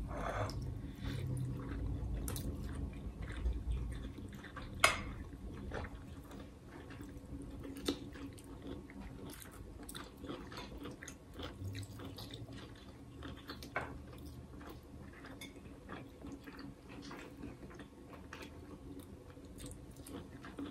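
Close-miked chewing and eating of takeout Chinese food, with a few sharp clicks scattered through, the clearest about five, eight and fourteen seconds in.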